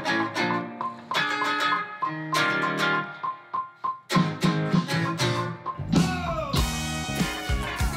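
A band playing a song: picked guitar notes on their own at first, with electric bass coming in about four seconds in and drums with cymbals joining about six seconds in.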